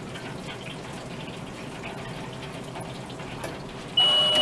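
Perfect Fry automatic ventless fryer running with a steady hiss while its basket of fried chicken fingers drains. About four seconds in it gets suddenly louder: a high beep lasting about a second and a steady hum start as the fryer begins to dispense the product.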